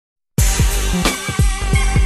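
A hip-hop beat starts abruptly about a third of a second in: heavy kick drums that drop in pitch, sharp percussion hits and sustained synth tones.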